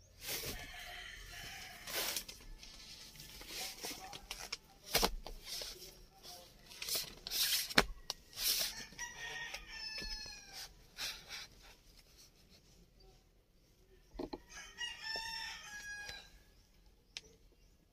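Plastic wrapping crinkling and rustling as it is handled, in loud irregular bursts over the first half. A rooster crows twice, about ten seconds in and again near the end, each a drawn-out call lasting a second or more.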